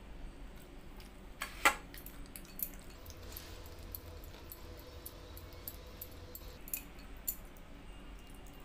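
A person eating pakhala (watery rice) by hand: soft chewing and squishing of wet rice, with a few sharp clinks, the loudest about a second and a half in.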